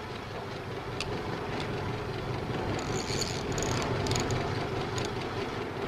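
Steady low rumble of a boat's engine running underway at sea, with wind and water noise.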